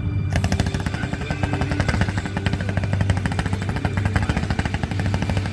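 Fireworks barrage: a rapid, continuous string of sharp bangs and crackles, many a second, starting suddenly just after the start.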